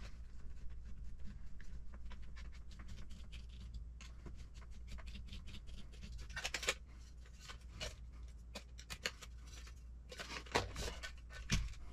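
Scattered light clicks and scrapes of small hard plastic and metal parts and hand tools being handled while RC truck suspension parts are fitted to the chassis. A few louder clicks come about halfway through and near the end, over a steady low hum.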